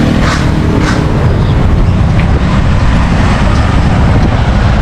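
Steady low rumble of city street traffic, with a couple of brief hissy sounds near the start.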